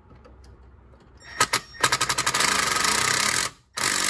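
Milwaukee impact driver with a JIS bit hammering out a corroded screw: a couple of short blips about a second in, then a run of rapid impacts for about a second and a half, a brief stop, and another burst near the end. The rapid hammering breaks the corrosion loose without stripping the screw head.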